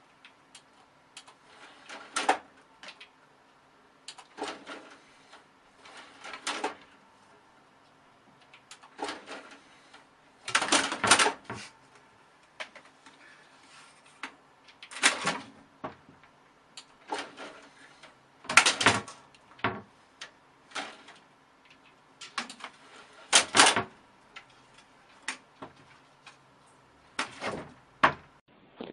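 A cat pawing and batting at a desktop computer tower's case, making irregular bursts of clattering knocks every couple of seconds, the loudest about a third and two-thirds of the way in.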